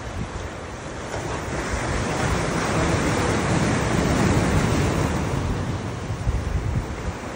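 Surf washing onto a rocky shore: a wave swells up, peaks about halfway through and falls away, with some wind on the microphone.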